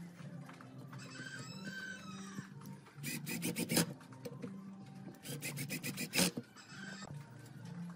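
Ozito cordless impact driver driving screws into pine boards: two bursts of rapid hammering, about three seconds in and again about five seconds in, each lasting about a second.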